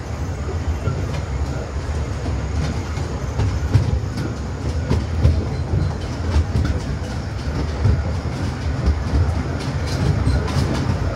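Small tourist train running along its track: a steady rumble with the wheels clacking over the rail joints, the clacks coming more often near the end.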